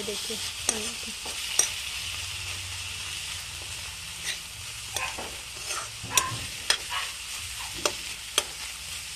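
Diced potatoes and brahmi leaves frying in oil in a kadai, sizzling steadily while a metal spatula stirs them, with sharp clicks of the spatula against the pan every second or so.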